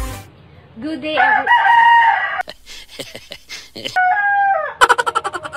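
Rooster crowing: one long call of about a second and a half that rises, holds and falls, then a shorter falling call about three seconds later. A few sharp clicks fall between the two calls.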